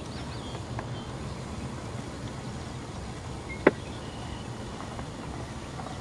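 Steady low hum of a boat motor under a light wash of wind and water noise, with one sharp click a little past halfway.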